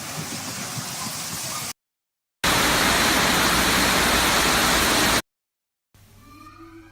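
Steady rushing water of a waterfall, heard in two edited clips separated by brief silences; the second clip, starting about two and a half seconds in, is much louder.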